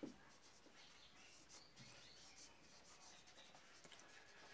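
Marker pen writing on a whiteboard: faint, short scratchy strokes, with a light tap at the start.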